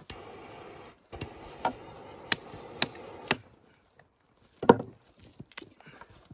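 A knife cutting through a duck's ribs and bones: a series of sharp cracks, several about half a second apart, then a single louder thump about four and a half seconds in.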